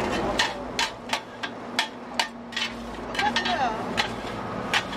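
Metal griddle scrapers striking and scraping a flat steel griddle as rice noodles are stir-fried. The result is a run of sharp, uneven clinks, roughly two a second.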